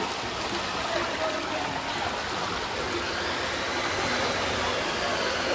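Heavy rain pouring down with water running, a steady rushing hiss.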